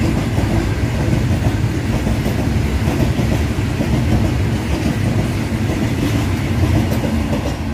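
Covered goods wagons of a freight train rolling past close by: a loud, steady rumble of steel wheels on the rails.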